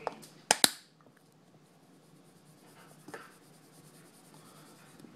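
Two sharp plastic clicks in quick succession as the stubborn lid of a garlic powder jar snaps open, followed by faint light handling sounds a little after the three-second mark.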